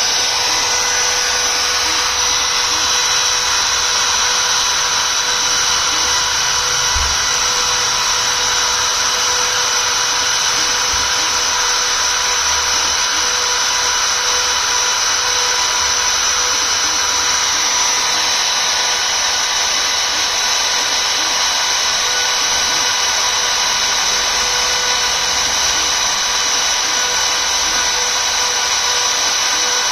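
CNC engraving machine's spindle running while engraving a logo: a steady high whine over a cutting hiss. The tone shifts slightly about eighteen seconds in.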